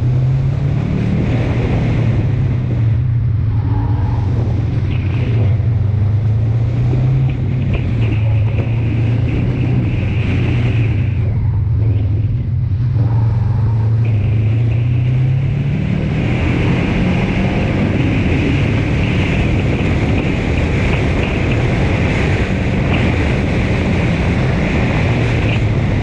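Subaru Impreza 2.5 RS's flat-four engine running hard through an autocross run, loud and steady, its pitch rising and falling as the throttle is worked.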